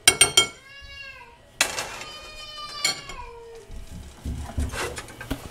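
A baby crying: two pitched wails, the first rising and falling, the second sliding down, with a clatter of dishes at the start.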